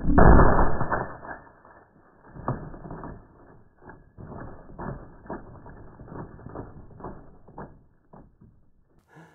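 Slowed-down audio of a 458 SOCOM rifle shot striking a ballistic gel block: one deep, muffled boom that fades over about a second and a half. A string of slowed knocks and clatter follows as the gel and the board under it are thrown off the table.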